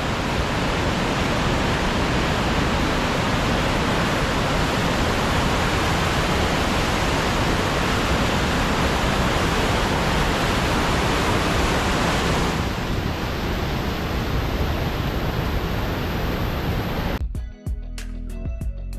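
Loud, steady rush of fast-moving water from a river running high with snowmelt. A little after twelve seconds the hiss thins slightly. Near the end, music cuts in and takes over.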